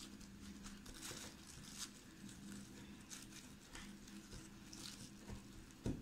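Faint rustling and crinkling of plastic wrap and crumbly biscuit base as fingers press it into a small steel bowl, with a soft knock just before the end.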